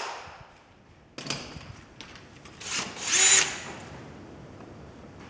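Small electric hammer drill run in short bursts: the motor spins up with a whine about three seconds in and winds back down.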